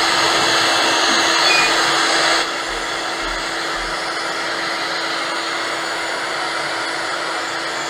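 Electric heat gun blowing steadily, drying and curing a layer of puff ink on a screen-printed T-shirt. About two seconds in, it drops in loudness and runs on more quietly.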